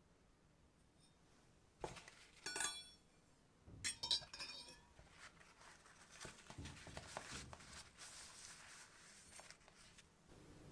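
Steel kitchen knife clinking against a glass mug of warm water as the blade is dipped in to warm it, with a few ringing clinks about two seconds in and again about four seconds in. Soft rustling follows as the blade is wiped on a paper towel.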